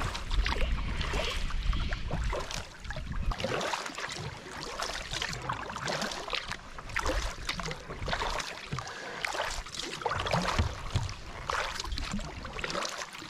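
Double-bladed paddle dipping and splashing in the water alongside a canoe, with water lapping, in irregular short splashes. A low wind rumble on the microphone runs underneath.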